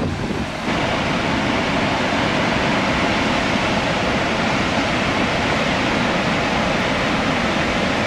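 Steady rushing roar of Devil's Bridge Falls, a tall waterfall cascading down a rocky wooded gorge; it grows louder and brighter less than a second in.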